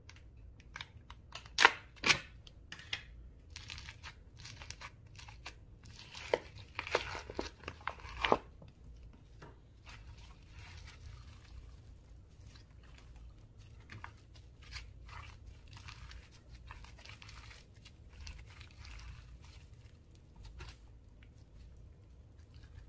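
Slime being squished and stretched by hand, giving sticky clicks and several sharp pops, busiest in the first third; then fainter, sparser clicking.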